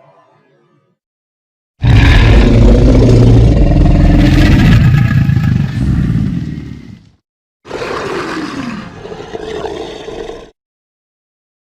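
Designed monster roar sound effect, layered from film creature roars: a loud, deep roar starts about two seconds in and fades out after about five seconds. A shorter, quieter roar with a falling pitch follows.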